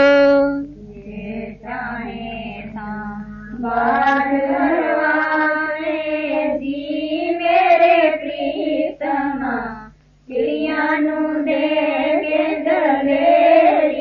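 Devotional shabad singing: a voice carries a melodic line with no clear words, over a low steady drone. It breaks off briefly about ten seconds in.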